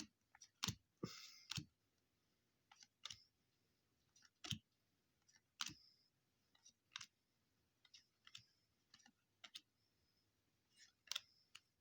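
Trading cards being handled and flipped through by hand: faint, irregular light clicks and snaps of card stock, about one or two a second.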